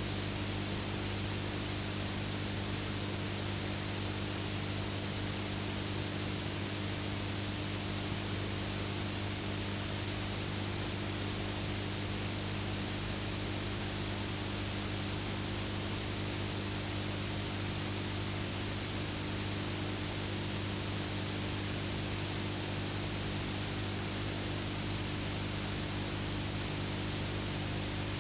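Steady hiss with a low, unchanging electrical hum underneath and nothing else: the noise floor of an old film-to-video transfer with no soundtrack.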